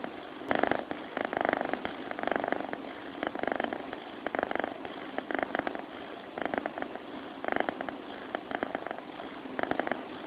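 Sleeping cat purring close to the microphone, a raspy pulsing burst with each breath, about once a second.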